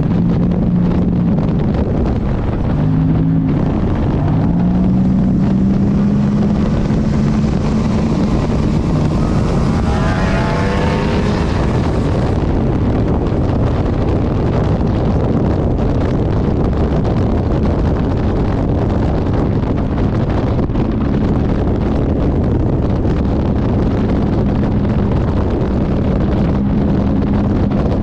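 A race car's GM engine running hard at speed, with wind noise over it. The engine note dips and climbs back about three seconds in, like a gear change. Around ten seconds in, a higher rising engine-like note and a rush of hiss come and go.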